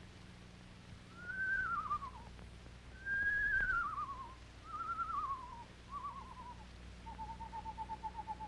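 Screech owl calls: four descending, quavering whistles, each shorter and lower than the last, then a long trill held on one pitch.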